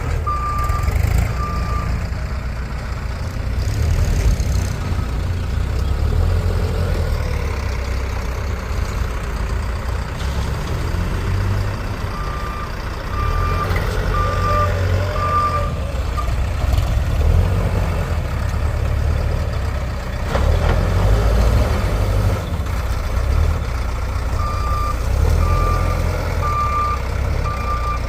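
Diesel engine of a Bull SD backhoe loader running, its low rumble rising and falling as it works. Its reversing alarm beeps about two times a second in three short runs: at the start, around the middle and near the end.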